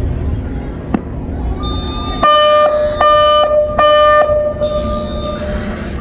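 Federal Signal DSA 6x2 outdoor warning speaker array sounding three short identical alert tones, about 0.8 s apart starting about two seconds in, the last one ringing on for about a second: the attention tone ahead of a spoken test message. A steady low outdoor rumble lies underneath.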